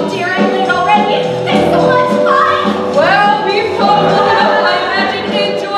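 Musical-theatre number: cast voices singing over instrumental accompaniment, continuous, with sliding sung pitches.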